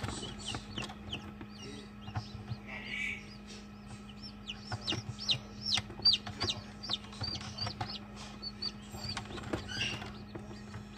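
Newly hatched Wyandotte chicks peeping: many short, high-pitched peeps in quick runs, busiest in the middle, over a steady low hum.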